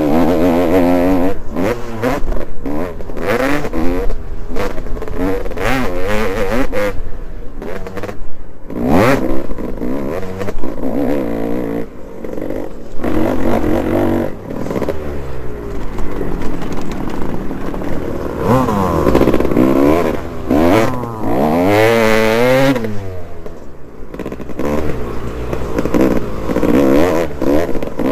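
Dirt bike engine heard from an onboard camera while racing, its pitch rising and falling over and over as the throttle opens and closes and gears change, with knocks and rattles over rough ground.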